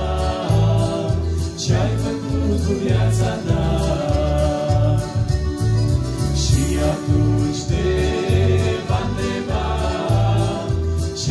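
A male vocal group sings a Romanian Christian song in harmony through microphones, over a steady rhythmic low bass line.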